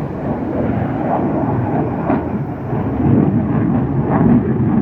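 Military jet passing overhead, its engine noise a loud, steady, deep rumble that swells slightly toward the end.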